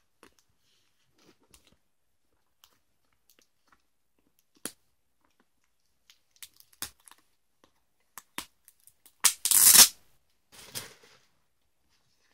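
Packaging and plastic-bagged comic books being handled: scattered light crinkles and taps, then a short, loud tearing rip a little past nine seconds in and a softer rustle about a second later.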